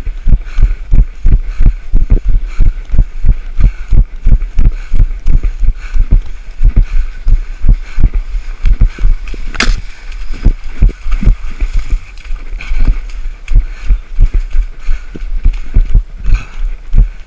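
A runner's footfalls on a muddy dirt trail, heard as low thuds jolting a body-worn camera, about three steps a second, with one sharp knock about ten seconds in.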